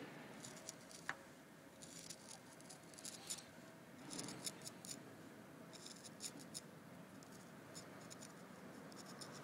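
Faint scratching of a small hand blade shaving and cutting into carved plaster relief. The scratching comes in several short groups of quick strokes, with pauses between them.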